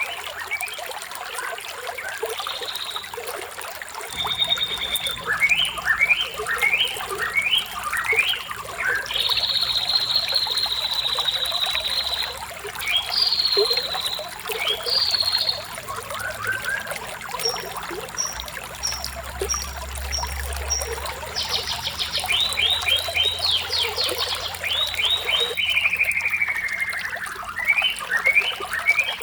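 Running water trickling steadily under the songs of several birds: runs of quick down-slurred notes, buzzy trills, a series of very high short chirps and a long falling whistle.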